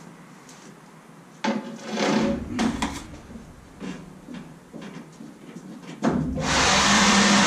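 Thumps and scuffing footsteps on a box truck's cargo floor, then an electric leaf blower switches on about six seconds in and runs steadily at full speed, much louder than the steps.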